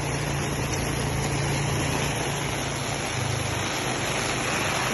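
An engine running steadily with a low hum that shifts slightly about three seconds in, under a steady hiss of rain.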